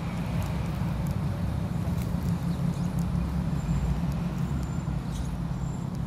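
Steady low rumble of road traffic, with a few faint, short high-pitched peeps in the middle.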